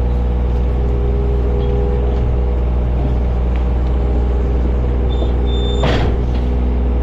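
John Deere 35G mini excavator's diesel engine running steadily under work, with a steady hydraulic whine over the drone. A single sharp clunk comes about six seconds in.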